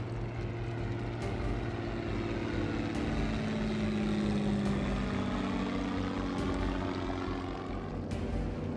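Single-engine propeller airplane flying overhead. Its engine drone grows louder toward the middle and drops in pitch as it passes.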